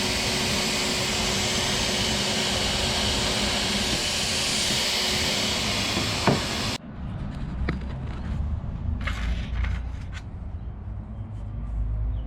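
Shop vac running as a blower, a steady rushing hiss used to pressurise the exhaust system for leak testing. It cuts off suddenly about seven seconds in, leaving light clicks and handling noises.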